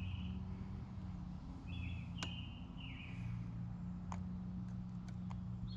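A songbird singing short repeated phrases over the steady low drone of a distant lawnmower engine, with a few sharp light clicks of a metal pick working at a stuck connector pin in the GPS mount.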